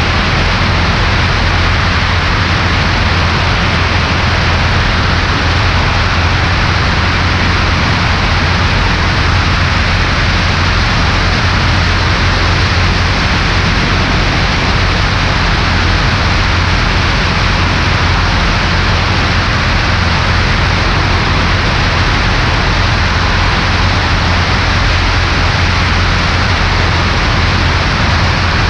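Cessna 140A's engine and propeller droning steadily in flight, under a constant rush of air noise; the engine is breaking in a newly installed cylinder.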